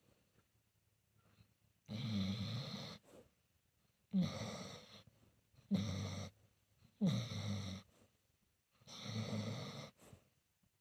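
Senior pitbull-mix dog snoring in its sleep: five snores, each about a second long, coming at uneven intervals with quiet between them.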